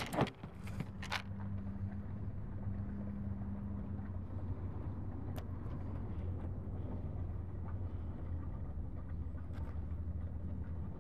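Engine idling steadily, a low even hum, with a sharp knock right at the start and a lighter click about a second in.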